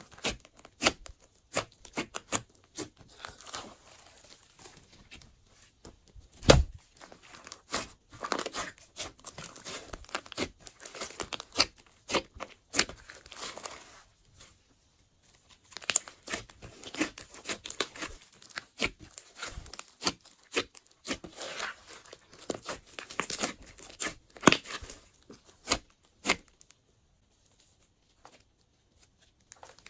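Glossy slime being kneaded and stretched by hand: irregular sticky crackles, pops and squelches as it is pressed down and pulled apart. There is one sharper snap a few seconds in, and two brief quiet pauses.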